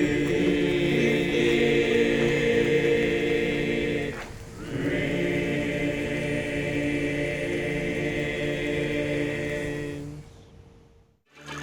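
A male choir singing long held chords in harmony, breaking briefly about four seconds in, then holding a second chord that fades away near the end.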